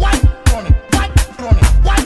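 Background music with a steady beat: an Afrobeat-style track with punchy drum strokes and dropping bass notes, about four to five strokes a second.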